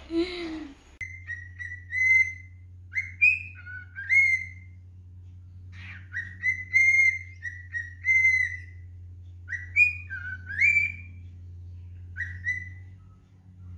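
Albino cockatiel whistling its song: a series of clear whistled phrases with quick rising and falling slides, in five bursts with short pauses between them.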